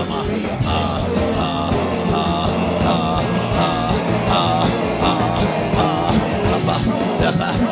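Loud live church band music with a steady beat, with voices rising and wavering over it as the congregation prays aloud.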